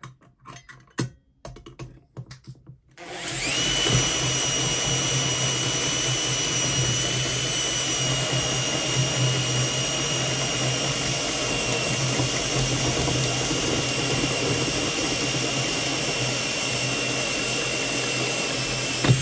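A few clicks and knocks, then about three seconds in a Makita drill on its slow setting starts driving a 20 mm hole cutter through a steel electrical back box. It runs steadily with a high motor whine that sinks slightly in pitch, for about sixteen seconds, and stops near the end as the cutter breaks through.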